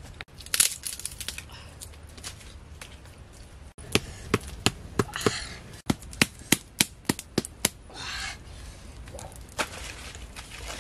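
Dry wood cracking and snapping in a quick, even run of sharp cracks, about three a second, through the middle. There is rustling near the start and a short hiss a little after the cracks stop.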